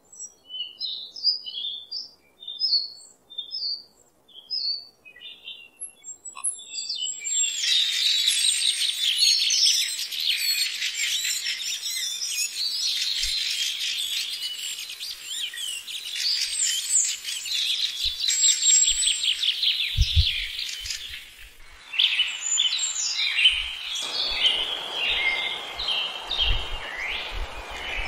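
Small birds chirping: a few separate high chirps at first, then a dense chorus of many birds singing and trilling from about seven seconds in. Low thumps and a rushing noise join in the last few seconds.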